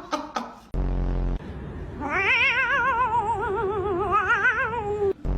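A cat's long drawn-out yowl, wavering evenly up and down in pitch for about three seconds before it fades. A short low hum comes just before it.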